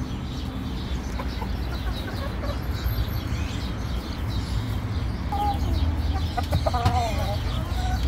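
Chickens clucking in their pens, with a louder wavering call near the end, over a steady low rumble.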